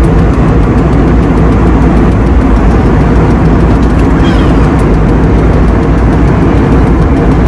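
Steady, loud cabin noise inside an Airbus A320neo in flight: the jet engines and rushing air, heard from a window seat beside the engine.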